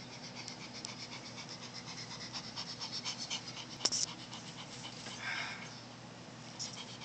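A Pomeranian panting rapidly right at the microphone, in quick, even breaths, with one sharp click a little before four seconds in.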